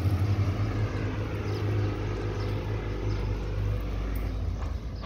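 A low, steady engine rumble that dies away near the end.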